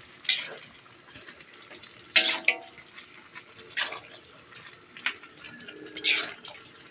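A metal spatula scraping and clanking against a large wok while stirring noodles and vegetables: four separate strokes a second or two apart, one with a brief metallic ring.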